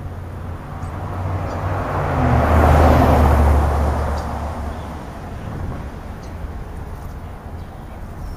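A car driving past: engine hum and tyre noise swell to a peak about three seconds in, then fade away.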